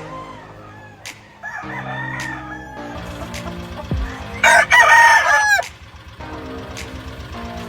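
Rooster crowing twice: a fainter crow about a second and a half in, then a loud crow about halfway through.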